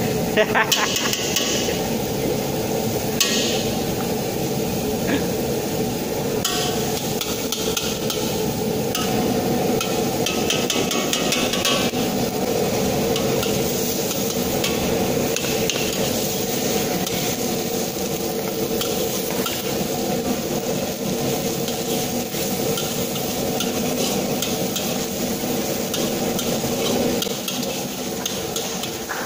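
Metal spatula scraping and knocking against a wok during stir-frying, over the steady rush of a commercial gas wok burner.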